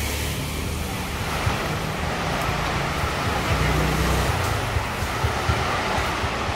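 Street traffic ambience: a steady wash of noise with wind buffeting the microphone, under a low engine hum that fades out about four and a half seconds in.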